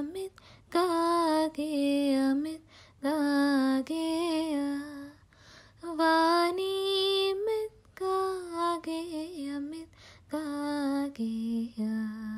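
A woman singing a Hebrew song unaccompanied, in short phrases with brief pauses between them, the last phrase sung on a lower note near the end.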